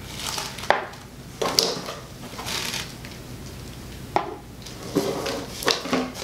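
Small empty essential-oil vials knocking and clinking against each other and the packaging as they are handled and counted, a scattering of light clicks with some rustling in between.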